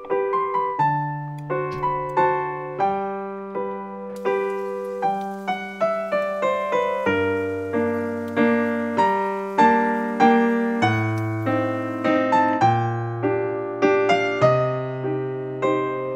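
Background piano music: a gentle run of struck notes, each fading away, with a bass line underneath.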